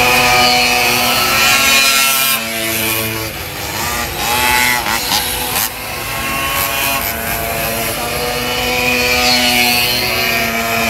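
Pocket bikes' small engines buzzing at high revs as the bikes race round a tight course, the pitch holding and then rising and falling with the throttle.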